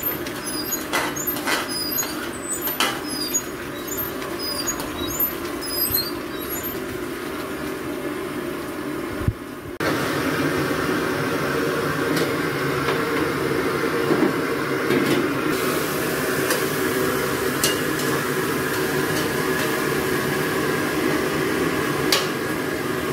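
Metal ladle knocking and scraping in an aluminium wok as garlic and onion fry in hot oil, with small crackles. About ten seconds in comes a steady sizzling hiss of vegetables frying, with an occasional clink of the ladle on the wok.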